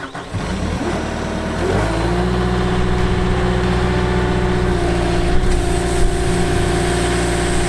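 Diesel engine of a Cat 242D skid-steer loader running: it rises in pitch about two seconds in as it is throttled up, then holds steady at working speed.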